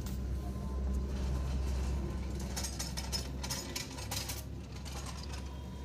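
Hand tools clicking and clinking on metal as the engine's accessory drive is dismantled, over a steady low hum.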